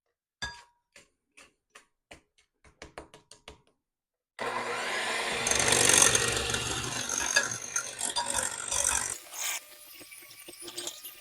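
A dozen or so light clicks and taps, then an electric mixer switched on about four seconds in, beating eggs into creamed butter and sugar. It runs steadily for about five seconds and stops abruptly, followed by light clatter.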